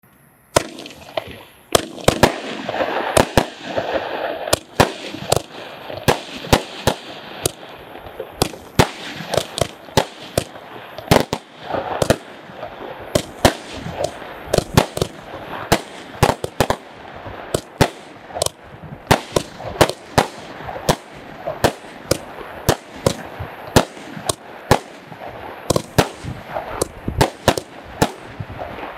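Total FX 'Blue Boy' multi-shot firework firing a rapid string of shots into the air: sharp bangs about two a second over a continuous hiss of burning stars and lift, starting about half a second in.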